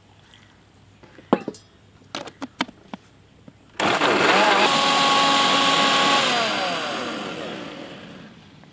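A few clicks as the plastic lid is fitted on the jar, then an electric blender starts abruptly, running steadily for about two seconds as it purees orange pieces with water. It is then switched off and winds down, its whine falling in pitch and fading.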